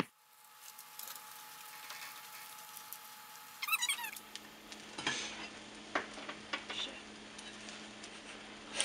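Tortilla de patatas egg mixture frying in a non-stick pan, a steady quiet sizzle, with a spatula knocking against the pan a few times from about five seconds in.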